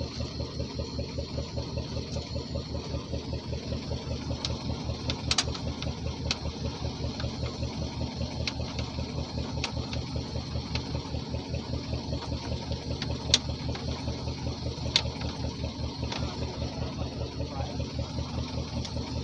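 A boat's engine running steadily with an even, rapid pulse. A few sharp clicks and knocks stand out above it, the loudest about two-thirds of the way through.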